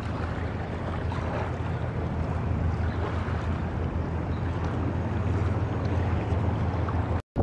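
Boat engine droning steadily, with water rush and wind noise on the microphone; the sound cuts off abruptly near the end.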